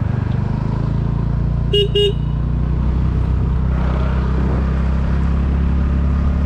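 Motorcycle engine running steadily on the move, with a horn sounding two short beeps close together about two seconds in.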